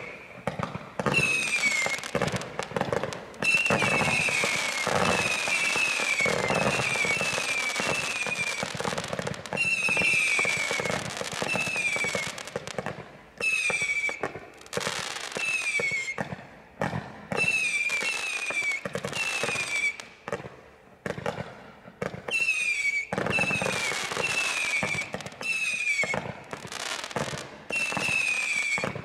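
Bright Star 2309 Penetrator 800-shot barrage firing rapidly: a fast run of shots, many trailing short whistles that fall slightly in pitch. The volleys come in bursts with a few brief pauses between them.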